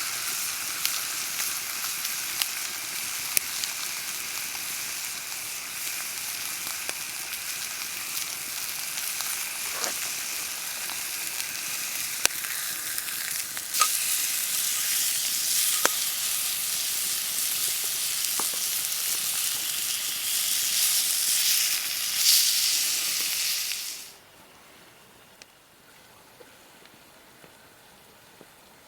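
Food sizzling and frying in a hot pan, with scattered sharp pops of spattering fat. The sizzle gets louder about halfway through, then cuts off suddenly a few seconds before the end, leaving only faint background with a few ticks.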